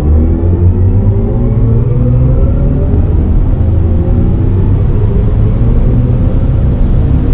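BMW electric car accelerating hard from about 100 to 200 km/h: motor whine made of several tones rising slowly in pitch over a loud, steady rumble of road and wind.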